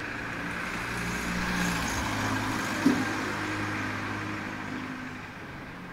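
A motor vehicle's engine running close by, growing a little louder over the first two seconds and fading away near the end, as a vehicle driving past. A single sharp knock sounds about halfway through.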